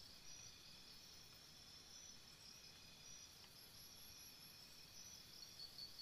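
Faint jungle-morning insect chorus: several thin, steady high trills, joined about five seconds in by a chirping call pulsing about four to five times a second.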